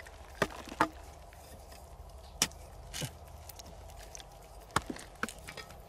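A metal-bladed digging tool striking and breaking hard, dry, cracked mud, with about half a dozen sharp strikes at irregular intervals.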